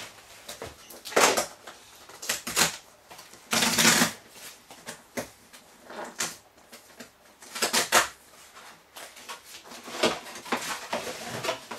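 Cardboard shipping box being opened and handled by hand: scattered knocks, scrapes and rustles of cardboard, with a longer tearing noise about four seconds in.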